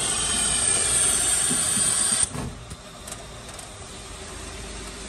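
Meat patty forming machine running: a steady mechanical hiss with a high whine that drops off abruptly a little over two seconds in, leaving a quieter machine running sound with a few faint ticks.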